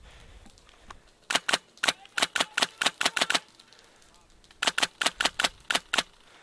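Airsoft gun firing close by in two quick strings of sharp cracks: about ten shots, a pause of about a second, then about eight more. The spacing between shots is uneven.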